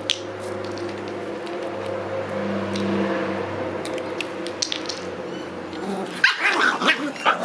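Shiba Inu puppies yapping and yipping in play near the end, in a quick run of short, high barks. Before that there is a steady low hum with scattered light clicks.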